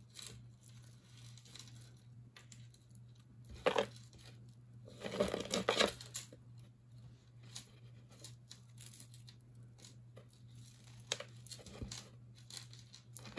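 Hands sorting and untangling tangled jewelry: rustling and small clicks of necklaces and beads being pulled about, with louder bursts of rustling about four seconds in and again between five and six seconds.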